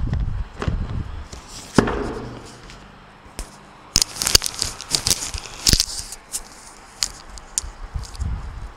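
Plastic packaging being handled and unwrapped, crinkling and crackling. There is a sharp click a little under two seconds in, and the crackling is thickest about four to six seconds in.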